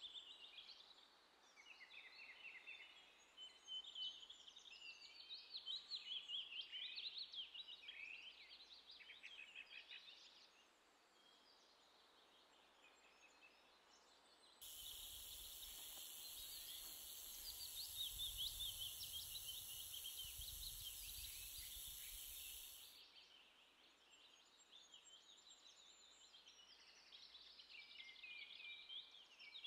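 Faint chorus of small birds chirping. From about halfway in, and for about eight seconds, a steady high buzz starts and stops abruptly: the dry rattle of a northern Pacific rattlesnake shaking its tail.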